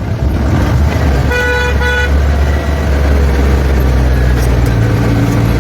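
A vehicle horn sounds twice in quick succession about a second and a half in, over the steady low rumble of a running engine.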